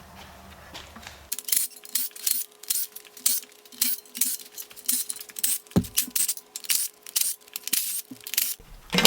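Background music with a steady percussive beat of crisp, bright hits about three a second over a held low note, starting abruptly about a second in and stopping shortly before the end.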